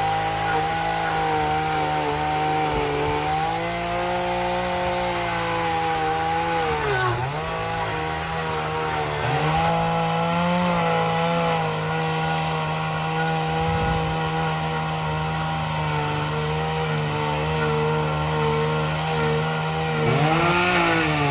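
Chainsaw running at high speed while cutting wood, with a steady engine note. Its pitch drops and recovers briefly twice, about seven seconds in and again near the end, as the chain bogs under load.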